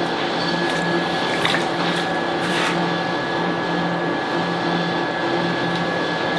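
A steady mechanical hum, a running motor with a low drone, fills the workshop. A few short scraping swishes of wet clay being smoothed by hand over a roof-tile mould come through about a second and two seconds in.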